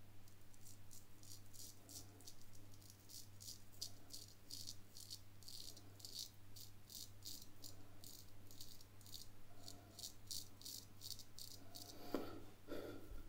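Drew Dick 8/8 smiling straight razor scraping through stubble and lather on the neck in quick short strokes, about three to four faint scratchy scrapes a second. A brief louder sound near the end.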